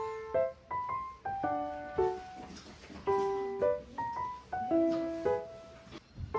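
Background music: a slow piano melody of single sustained notes, with the phrase repeating.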